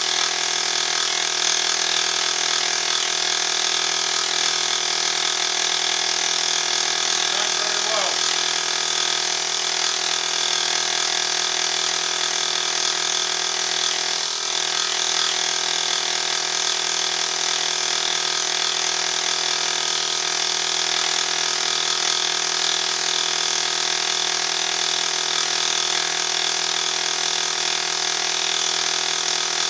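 Benchtop milling machine running steadily while a carbide-insert dovetail cutter takes a partial-depth cut along a cast iron cross slide. It is an even, unchanging whine made of several constant tones over a high hiss.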